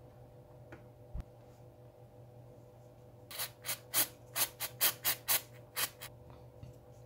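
Aerosol spray can giving about ten short puffs of spray in quick succession, about four a second, starting about three seconds in. A soft knock about a second in.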